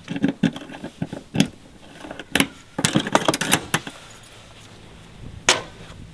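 Keys jangling and metal locks and latches clicking as a camper trailer's locked hard-top rooftop tent is unlocked. The sharp clicks and knocks come in short clusters, busiest about three seconds in.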